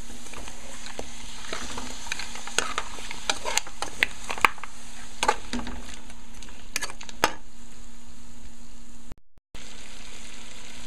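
Mutton pieces coated in masala paste sizzling as they fry down in oil in a metal pot over turned-up heat, with a metal spoon stirring and scraping against the pot several times in the middle. The sound drops out briefly near the end.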